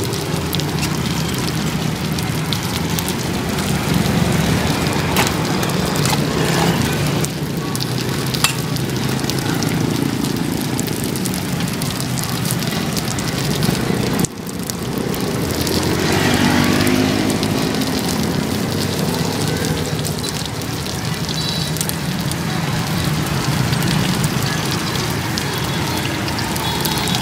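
Flat cakes frying in oil on a wide metal pan, a steady sizzle.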